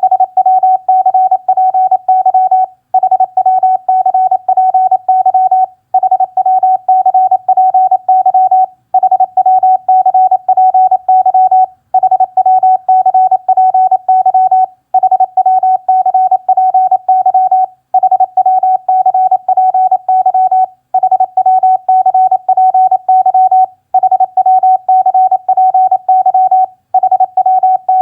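Morse code practice tone at 28 words per minute: a single steady beep keyed rapidly into dots and dashes, sending the ham-radio QSO phrases HW CPY and GUD CPY. The code comes in groups about three seconds long with a short pause between each, about ten in a row.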